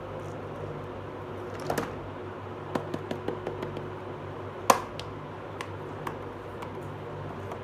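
Light clicks and taps of hard plastic toy pieces being handled and set down: a pair of clicks, then a quick run of small taps, then one sharper tap a little past the middle, with a few faint ticks after it. A steady low hum runs underneath.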